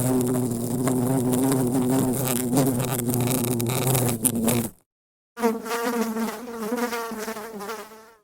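Buzzing of a flying insect, like a fly, heard as two separate takes with a brief silence between them, the second fading out near the end.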